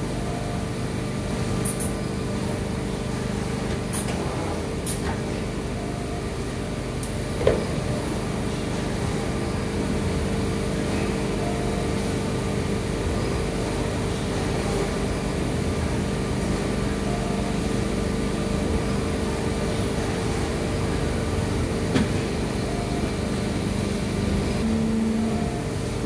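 Plastic injection moulding machine running, a steady hum from its motor and hydraulic pump with a few short clicks and knocks from handling at the machine.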